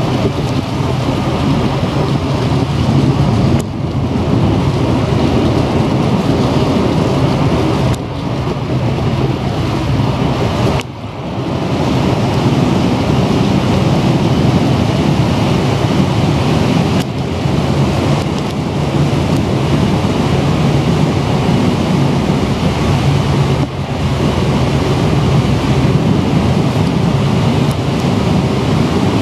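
A ferry's engine drones steadily as the ship gets under way, with rushing water from the wake and heavy wind buffeting the microphone. The roar dips briefly a few times.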